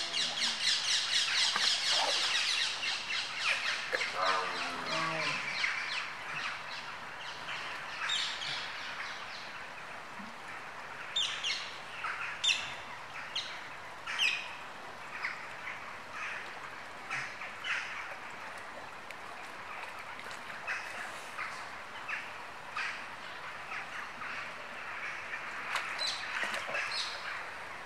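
Birds calling: a rapid twittering song in the first few seconds, then scattered short chirps and squawks.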